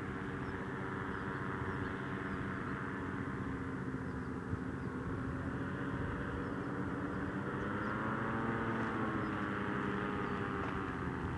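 Paramotor engine and propeller droning steadily. In the last few seconds it grows a little louder and its pitch bends as it passes.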